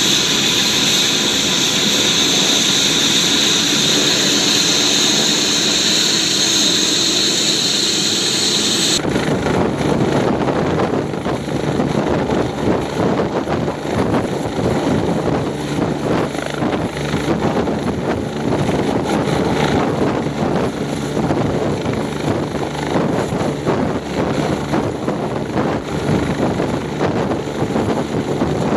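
UH-72 Lakota helicopter running with its rotor turning: a loud high turbine whine for about the first nine seconds, then an abrupt change to a fuller, pulsing rotor beat with less whine. Near the end the helicopter starts to lift off.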